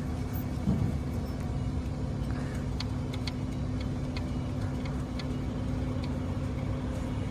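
A wrench working a 14mm alternator mounting bolt loose, giving a scattering of faint light metallic clicks a few seconds in, over a steady low mechanical hum.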